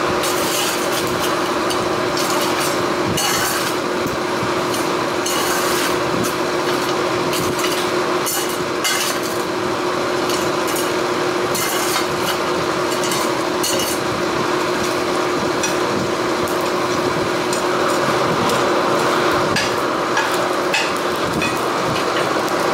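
A forge running with a steady roar and a constant hum, with irregular sharp metal clinks and knocks, about one every second or two, over it.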